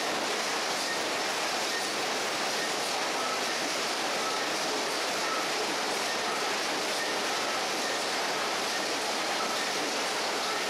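Steady, even running noise of wooden-crate production line machinery, with faint short high tones recurring about once a second.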